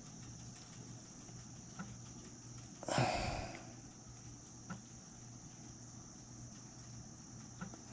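A person's single short, loud sniff about three seconds in, over a steady low hum, with a few faint clicks.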